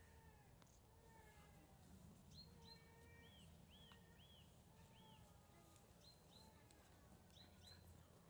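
Faint outdoor quiet with a small bird calling: about ten short chirps, often in pairs, over a low steady rumble.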